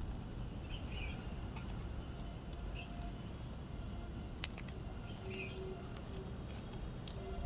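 Block of gym chalk being crunched and crushed, with scattered crackling clicks and one sharper crack about four and a half seconds in, over a steady low rumble. Faint bird chirps sound a few times in the background.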